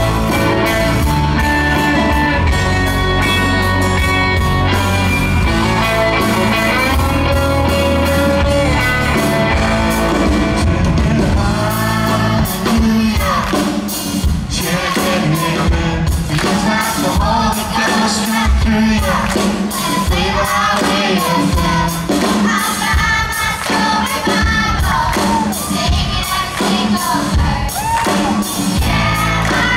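Live rock band with electric guitars playing held chords; about twelve seconds in, singing comes in over the band, with children singing into a microphone held out to them.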